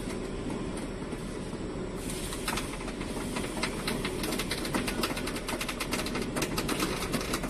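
CNC sheet-metal forming machine running with a steady low rumble. About two seconds in, a rapid, irregular metallic clicking and clattering starts on top of it and keeps going.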